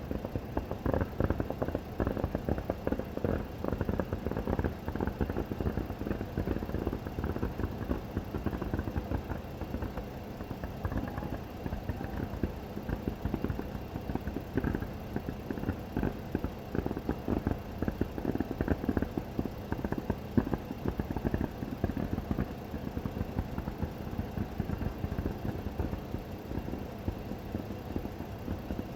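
Fireworks going off in quick succession: a dense, unbroken run of muffled booms and crackles.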